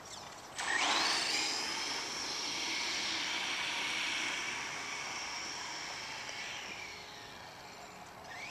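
Exceed Dynamite 1/10-scale RC truck taking off at full throttle: a sudden rising high-pitched whine about half a second in that holds steady, then slowly fades as the truck drives away.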